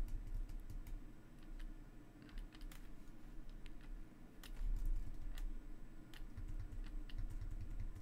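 Irregular light clicks and taps from a computer keyboard and mouse in use, with soft low bumps underneath.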